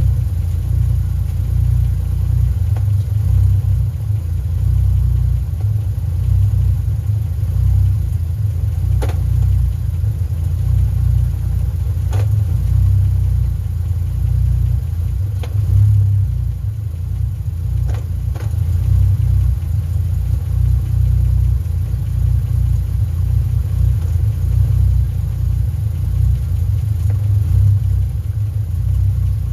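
Car engine and drivetrain running with a steady low rumble, with a few separate sharp knocks scattered through it. The car has a Toyota V160 six-speed manual gearbox, and the owner reports a rattle from the top of the gearbox where the shift rod joins the shifter, heard as the clutch is let out under throttle.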